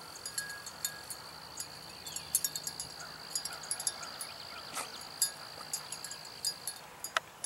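A small bell on a hunting beagle's collar, jingling in quick, irregular clinks as the dog moves through the grass. A thin, steady high tone rings behind it and stops near the end.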